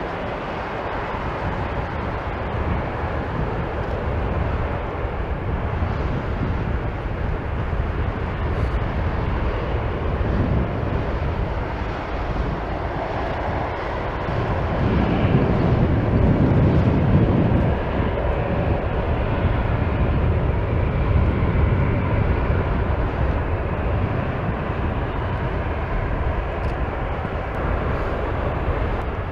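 Airbus A321-211's twin CFM56-5B turbofan engines running at taxi power as the jet taxis, a steady jet rumble and hiss that swells louder for a few seconds about halfway through.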